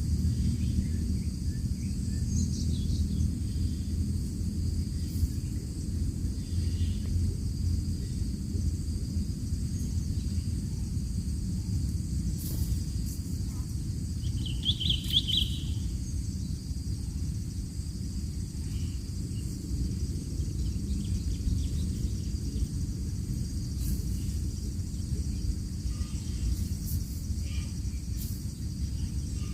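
Open-field ambience: a steady low rumble under a steady high insect buzz, with one short, clear bird chirp about halfway through and a few fainter chirps.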